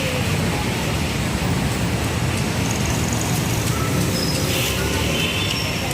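Steady road traffic noise, a continuous low rumble of passing vehicles with no single event standing out.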